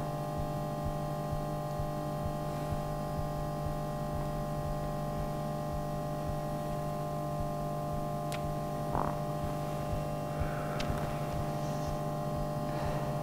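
A steady, unchanging hum made of several held tones, with a few faint clicks about eight to eleven seconds in.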